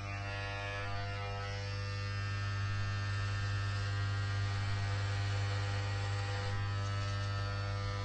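A steady low hum with a stack of overtones, growing slightly louder.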